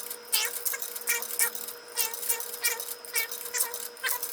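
Nickels being fed one at a time into a soda vending machine's coin mechanism, each one clinking and ringing as it drops through, about two a second.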